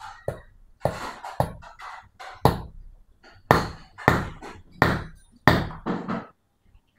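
Hammer knocking a new seal and bearing into a Yamaha Jupiter MX King water pump housing: about a dozen sharp strikes at an uneven pace, with a pause of about a second midway.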